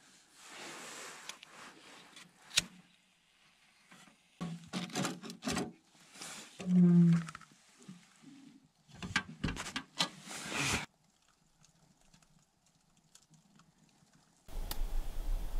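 Small sheet-metal wood stove being lit: a short hiss about a second in, then knocks and clatter of metal as the stove and its door are handled, with a brief low hum midway. After a few quiet seconds, a steady rushing noise starts suddenly near the end.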